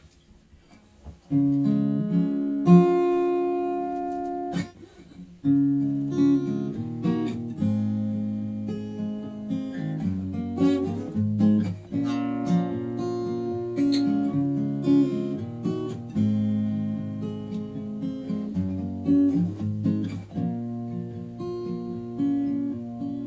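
Acoustic guitar playing an instrumental intro: strummed and picked chords, starting about a second in, with a brief pause near five seconds.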